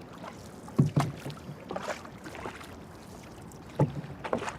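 Oars of a small rowing boat working through river water, with two sharp strokes about three seconds apart over a steady low wash.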